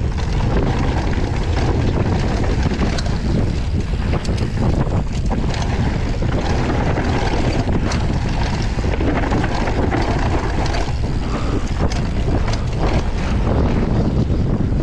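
Wind buffeting the microphone as a downhill mountain bike runs fast down a dirt trail, with a steady low rumble from the tyres and frequent clicks and rattles from the bike over bumps.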